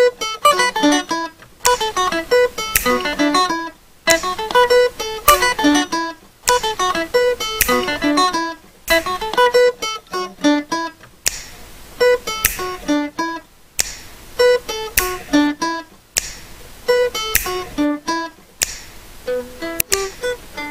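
Background music: an acoustic guitar picking quick runs of notes, in phrases broken by short pauses.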